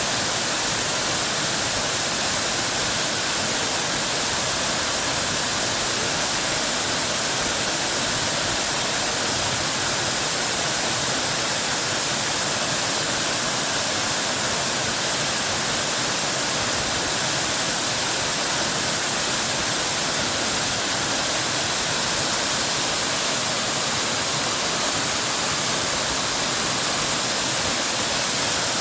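Soco Falls waterfall pouring: a steady, unbroken rush of falling water.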